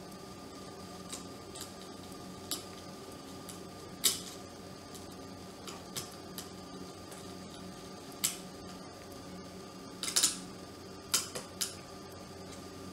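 Scattered small metal clicks and taps from a screwdriver and the neon lamp's terminal being fitted on a dry iron's base, loudest about 4, 8 and 10 seconds in, over a faint steady hum.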